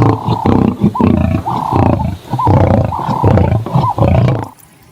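Lion roaring in a quick run of loud, short roars that stops about half a second before the end.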